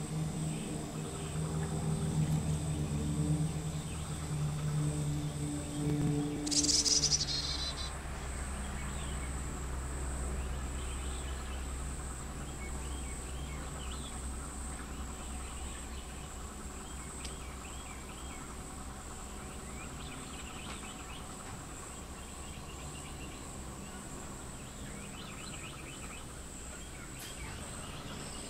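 Outdoor ambience dominated by a steady high-pitched insect drone, with faint scattered chirps. A low hum runs beneath it for the first seven seconds and then fades, with a short hissing burst just before it stops.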